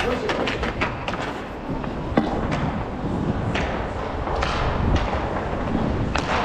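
Roller hockey play: inline skate wheels rolling on the rink surface under scattered sharp knocks of sticks and puck.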